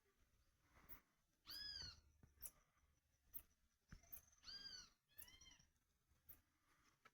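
Faint calls of marmosets (soim): three arching, high-pitched cries that rise and fall, about a second and a half in, near four seconds and again just after five seconds, with short sharp chip-like clicks scattered between them.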